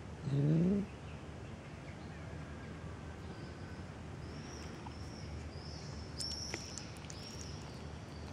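A kitten gives one short meow, rising in pitch, about half a second in. After it, small birds chirp in the background, a run of high chirps in the second half.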